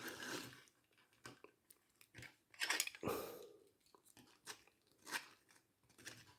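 Faint handling noise of small plastic action figures being moved and set in place: scattered light clicks and taps with short rustles, the longest rustle about three seconds in.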